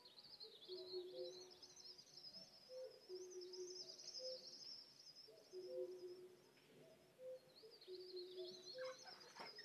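Faint field recording of birds played back over a video call. A continuous high twittering runs through it, with a low two-note call repeating about every second and a half. A few clicks come near the end.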